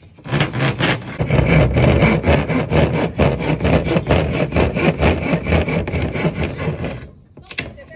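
Hand saw cutting through a plywood sheet with rapid, even strokes, which stop about a second before the end.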